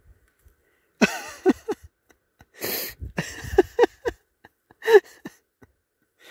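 A person's wordless cries: a string of short yelps, each falling in pitch, with a breathy burst among them, between about one and five seconds in.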